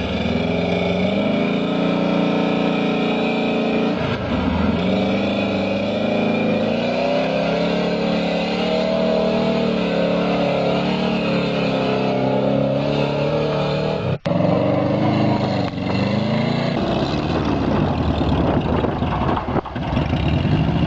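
ZAZ-968M Zaporozhets's air-cooled V4 engine (MeMZ-968) revving hard under load, the revs rising and falling again and again as the car ploughs through deep mud and climbs a dirt bank. The sound breaks off for a split second about two-thirds of the way through.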